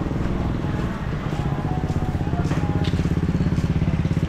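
Small motorcycle engine running with a rapid, even throb that grows louder after about a second in.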